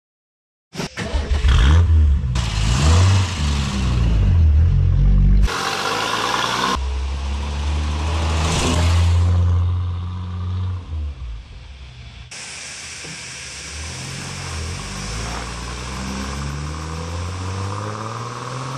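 A car engine starting about a second in and revving, then running as the car pulls away and drives off, its pitch rising and falling through the gears.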